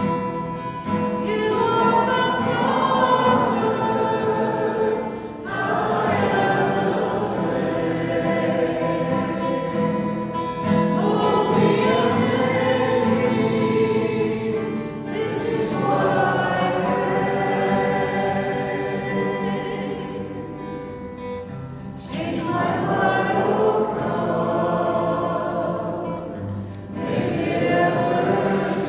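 A church congregation singing a hymn together with instrumental accompaniment, in sung lines of a few seconds each with short breaks between them.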